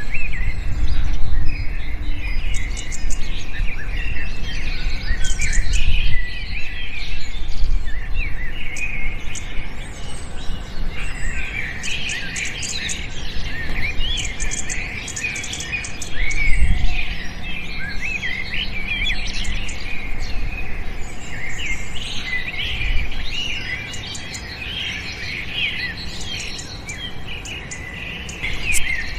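Many small songbirds chirping and twittering together, a dense chorus of short, quick calls overlapping throughout, with a low rumble underneath.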